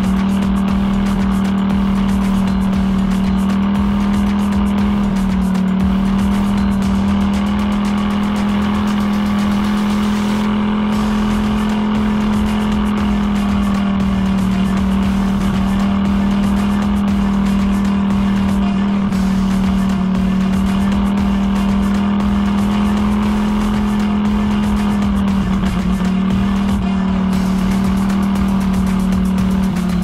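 ATV engine running at a steady cruising speed while riding, a constant drone with small rises and dips in pitch.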